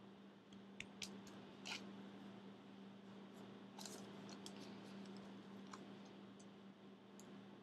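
Faint handling of soft clay: scattered light taps and clicks as hands press and turn a lump of clay on a cloth-covered table, over a steady low hum.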